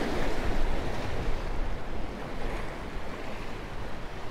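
Surf washing against the jetty rocks, with wind rumbling on the microphone.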